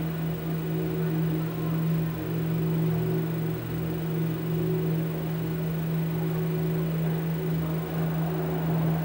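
Steady low electronic drone with a noisy hiss over it and fainter higher tones wavering in and out.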